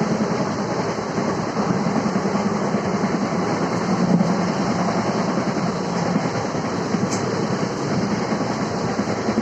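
ICF passenger coach running at about 110 km/h: a steady rumble of steel wheels on the rails with a fast clickety-clack over the rail joints.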